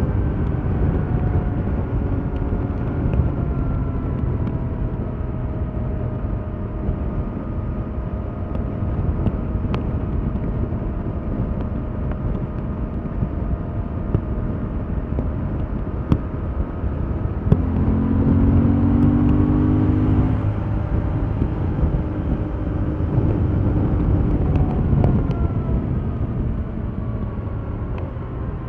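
A 2021 Yamaha MT-07's 689 cc parallel-twin engine pulling the bike along under a constant rush of air. The revs ease off gently at first. About two-thirds of the way through they rise again, louder, as it accelerates, and a little later there is another brief change in pitch.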